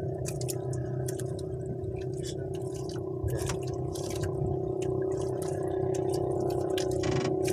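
A steady mechanical hum with one strong even tone, with small clicks and taps over it.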